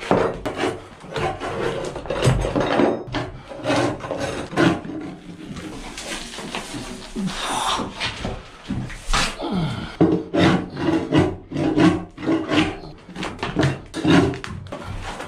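Glued-down wood flooring in a boat cabin being pried and scraped up by hand, with wood and old adhesive rasping and tearing loose. In the second half it settles into quick scraping strokes, about two a second.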